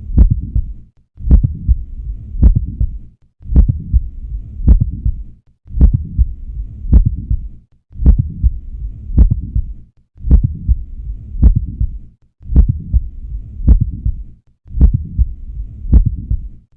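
Heart sounds auscultated at the cardiac apex: a mid-systolic click falling between the first and second heart sounds, beat after beat about once a second. A mid-systolic click is the classic sign of mitral valve prolapse.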